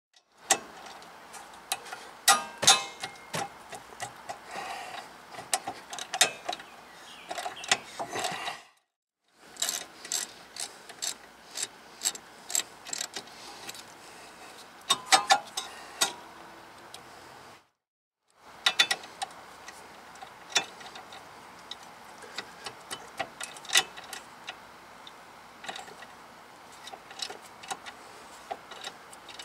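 Hand tools working on a car's rear disc brake caliper: ratchet clicks and sharp metal clinks at an irregular pace, broken off abruptly twice by brief silences.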